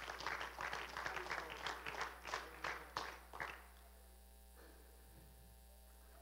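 Scattered applause from a small congregation, a few people clapping, dying away about three and a half seconds in. After that there is only quiet room tone with a faint steady electrical hum.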